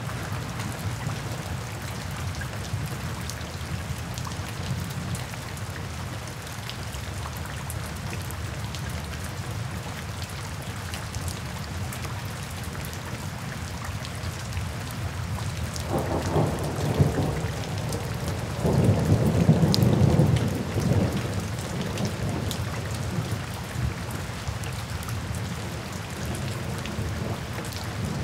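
Steady rain falling on wet pavement, with individual drops splashing. Low rumbles of thunder come past the middle: a short one, then a louder one lasting about two seconds.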